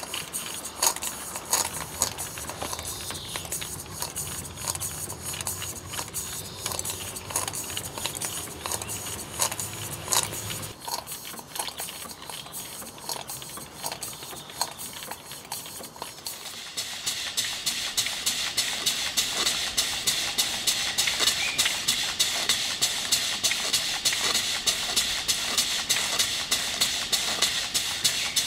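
Model beam engines running on live steam, their valve gear and pump clicking in a steady rhythm. A little over halfway in, the sound gives way to a loud hiss of escaping steam with faster, regular ticks.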